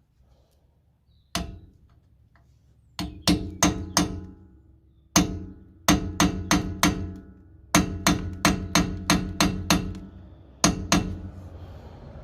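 Hammer striking a chisel set against the edge of a seized, rusted Torx screw head on a car's rear brake drum, driving it round to loosen it. One blow, then quick runs of ringing metallic blows at about four a second, and two last blows near the end.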